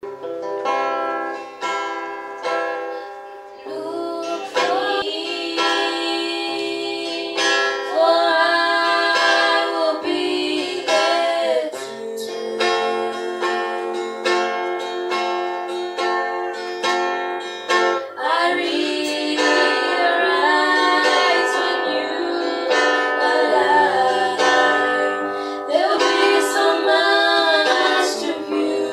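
Two women singing a gospel song to a strummed guitar. The guitar plays alone for the first few seconds, and the voices come in about four seconds in.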